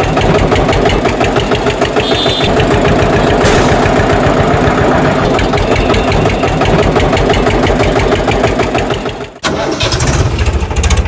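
Tractor engine running steadily with a fast, even knocking beat. It cuts out abruptly about nine seconds in and starts again at once.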